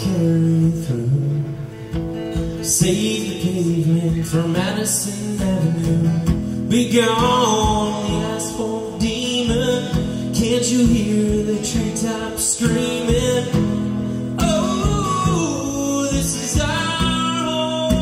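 A man singing a song while strumming an acoustic guitar, performed live.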